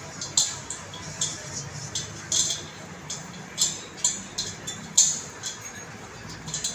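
Irregular light metallic clicks and clinks, one or two a second, as a metal fitting is twisted and tightened by hand onto a gas cylinder's valve.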